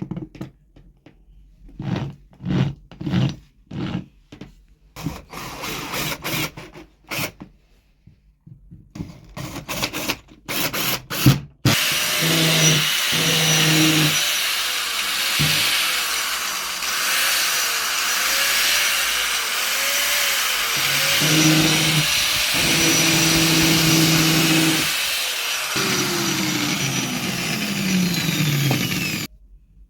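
Angle grinder motor: a string of short bursts, then running steadily for about seventeen seconds, with a falling tone near the end before it cuts off abruptly.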